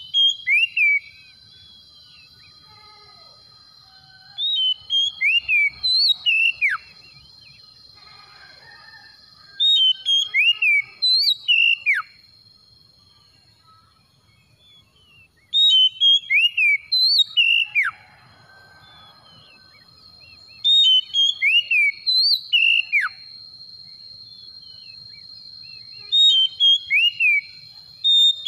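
Oriental magpie-robin (kacer) singing the same short phrase over and over, about every five seconds. Each phrase is a quick run of clear whistled notes, several sweeping sharply downward. A steady, thin, high tone runs underneath.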